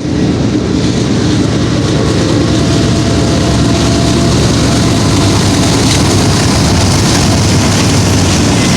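Freight train passing close by at speed: a steady loud rumble of diesel locomotive engines and steel wheels running on the rails.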